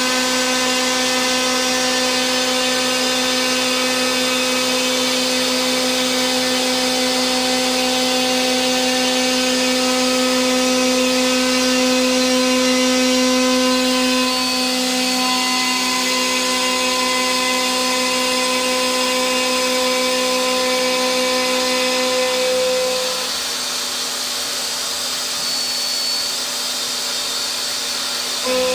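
A CNC mill's end mill side-cutting the edge of a cast iron plate: a steady cutting tone over the spindle's whine and the hiss of an air blast, shifting in pitch about halfway. The cutting tone mostly drops out a few seconds before the end, as the cutter runs off the edge, and comes back right at the end as it enters the cut again.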